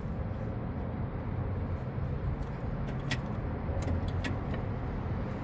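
Steady low rumble of outdoor background noise, with a few faint light clicks about halfway through as a coolant hose at the thermostat housing is worked loose by hand.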